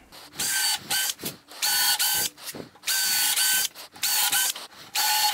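Cordless drill running in about six short bursts of roughly half a second each, each at a steady whining pitch, as pilot holes are drilled into the wooden frame of a workbench.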